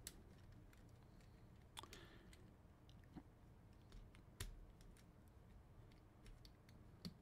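Faint, scattered clicks of plastic action-figure parts being handled, as the wheels are rotated and pressed into the legs of a Transformers figure; the sharpest click comes a little past halfway.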